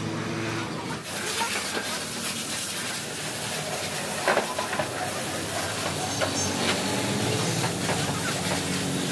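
High-pressure washer jet hissing steadily as it sprays water over a stripped-down engine's cylinder head, block and other parts. The hiss sets in about a second in.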